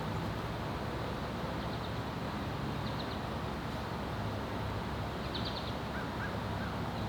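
Steady outdoor background noise, with a few faint, short, high chirps about three seconds and five and a half seconds in.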